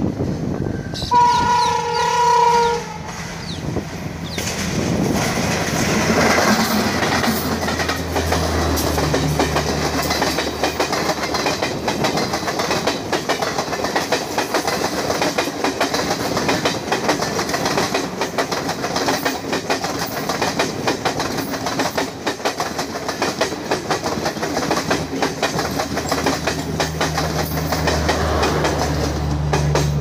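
Indian Railways WCAM2P electric locomotive's horn sounding one hoarse blast of about a second and a half, about a second in. Then the locomotive and its train of coaches pass close by, wheels clattering over the rail joints until the end.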